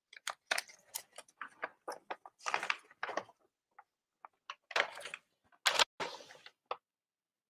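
Irregular clicks, knocks and rustles of things being handled close to the microphone, coming in scattered bursts with the loudest about five and six seconds in.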